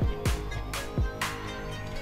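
Background music with a steady beat: deep kick-drum thuds and bright cymbal hits over held musical tones.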